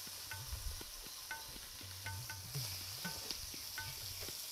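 Chopped bell peppers sizzling in hot oil with whole spices in a pot. A stirring spoon clinks and scrapes against the pot two or three times a second.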